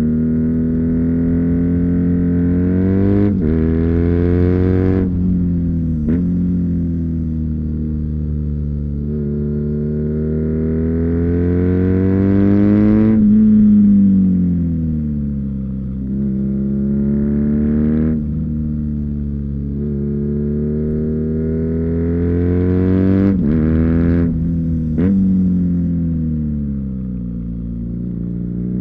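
2019 BMW R nineT's air/oil-cooled boxer twin through its Akrapovic slip-on exhaust, heard onboard while riding. The revs climb and fall repeatedly through the corners, peaking about halfway through. The note breaks sharply several times as gears change.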